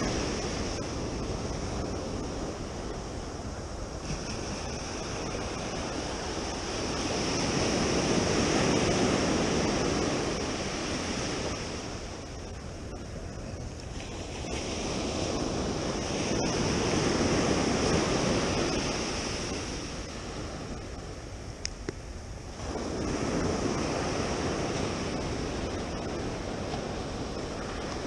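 Ocean surf breaking and washing up a sandy beach, swelling and ebbing every several seconds. A couple of short sharp clicks come about three-quarters of the way through.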